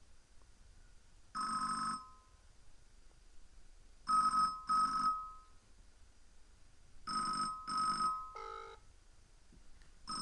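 Telecom Australia payphone's ringer ringing in the Australian double-ring pattern: one ring, then two pairs of short rings about three seconds apart.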